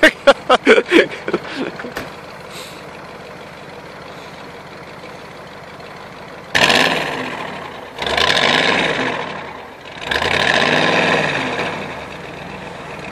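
Off-road 4x4's engine running steadily, then revved hard in three surges, each rising and falling over about two seconds, with a rushing noise of wheels churning snow as it pushes through deep snow.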